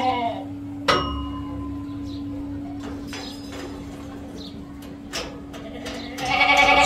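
Totapuri goats bleating: a short falling bleat at the start and a loud bleat near the end. A metallic clang rings briefly about a second in, over a steady low hum.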